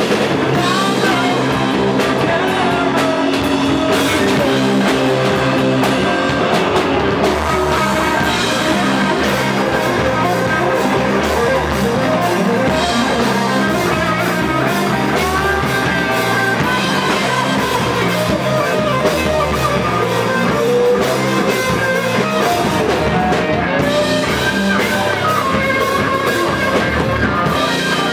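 A rock band playing live: electric guitar over a drum kit, at a steady loud level.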